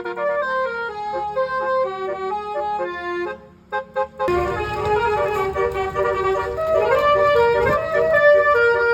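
Basuri 'telolet' musical bus horn playing a quick melody of clear, stepped notes. It breaks off briefly about three seconds in, then resumes over a low rumble.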